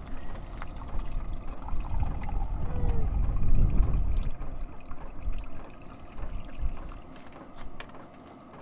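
Water running from the spigot of a blue plastic water jug into a plastic container, trickling steadily and easing off after about six seconds as the spigot is shut. A low, uneven rumble sits underneath.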